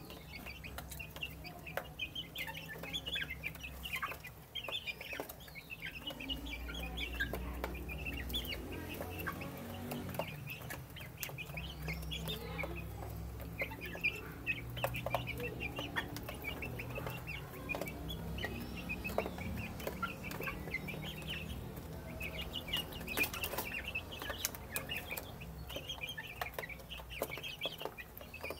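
A flock of young growing chickens peeping and chirping without pause while they feed, with scattered sharp clicks of beaks pecking at the metal feed dish.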